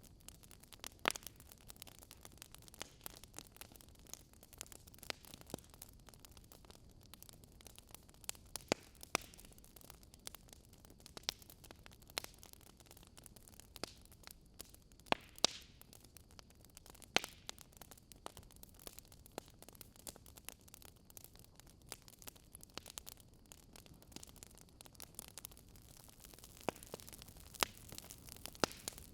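Wood fire burning: burning logs crackling and popping with sharp irregular snaps over a faint steady hiss, a few pops louder than the rest.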